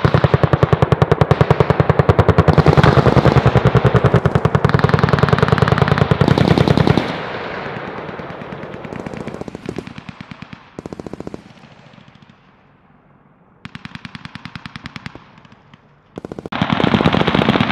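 Rapid automatic fire from an AH-64 Apache's 30 mm M230 chain gun: one long continuous burst for about seven seconds, then shorter, fainter bursts with gaps between them, and loud sustained firing again near the end.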